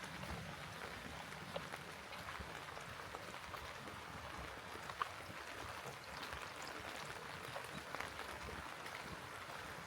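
Steady rain falling, an even hiss with scattered single drops ticking here and there.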